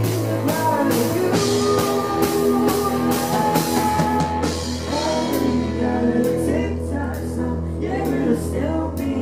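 Live band music: a woman singing held notes over keyboard, a steady bass line and drums, with the cymbal strokes thinning out about halfway through.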